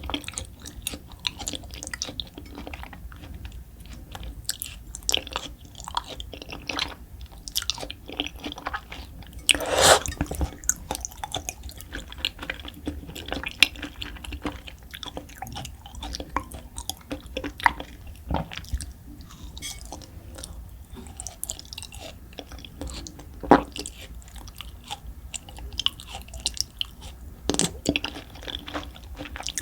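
Close-miked chewing: a steady run of wet, sticky mouth clicks and smacks, with one louder burst about ten seconds in.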